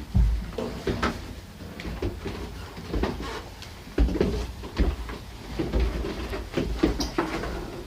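Irregular knocks, clicks and low thumps, a few each second, with no engine running.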